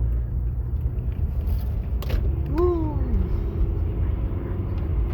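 Steady low rumble of a car driving, heard inside the cabin. A single click comes about two seconds in, followed by a short falling hum from a person's voice.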